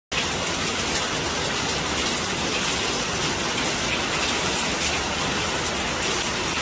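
Hail falling steadily onto paving stones and a corrugated metal fence, a dense even hiss of pelting ice, starting after a split-second gap at the very beginning.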